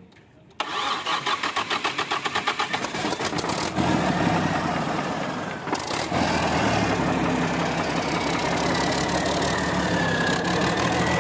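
Daewoo six-cylinder diesel truck engine being started for the first time after its rebuild. The starter cranks it in quick rhythmic pulses for about three seconds, then the engine catches and runs steadily, faltering briefly about six seconds in.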